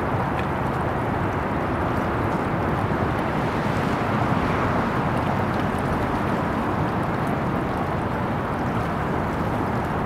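Steady rushing outdoor noise with no distinct events and no gull calls.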